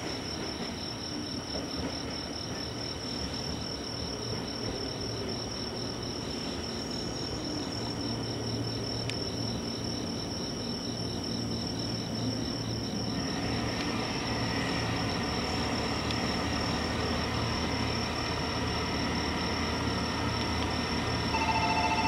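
Crickets and other autumn insects chirp in a high, continuous trill as a JR 115-series electric train approaches and rolls into the platform. The train's rumble grows from about four seconds in, and from about halfway high whining tones join it as it slows. Just before the end a pulsing electronic tone starts.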